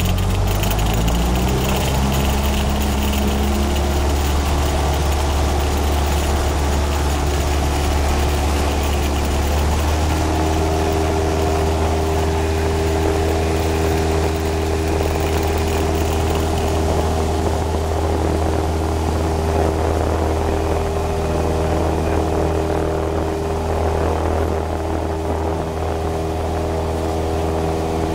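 Single-engine light aircraft's engine and propeller running at low power, heard from inside the cockpit while taxiing onto the runway. A steady low drone whose note rises slightly about a second in, then holds, with a change in its higher tones about ten seconds in.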